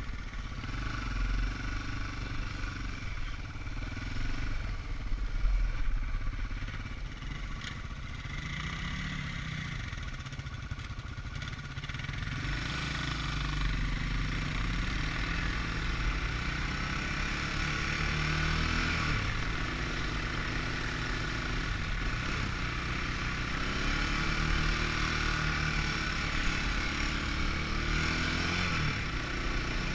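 ATV engine running under way, its pitch rising and falling as the throttle opens and closes. From about twelve seconds in it runs louder and steadier.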